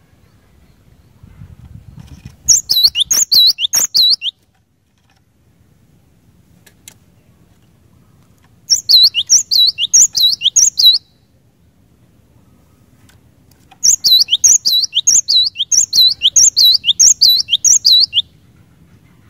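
Cinereous tit (glatik batu) singing: three bouts of quickly repeated, clear, falling whistled notes, the last bout the longest, with short pauses between.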